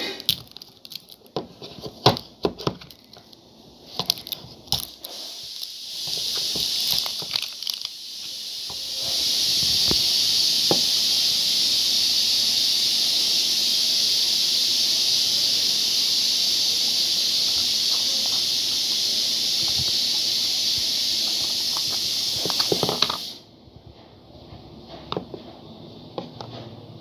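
Small plastic cream jars and lids clicking and knocking as they are handled. Then a loud, steady hiss builds up over a few seconds, holds for about fourteen seconds and cuts off suddenly.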